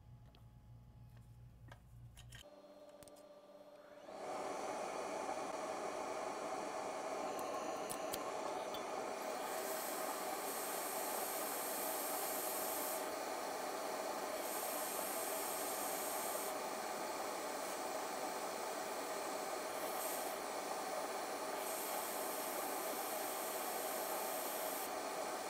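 Hot air rework station switched on about four seconds in and blowing steadily: a hiss of air over a midrange hum, with a higher hiss cutting in and out several times.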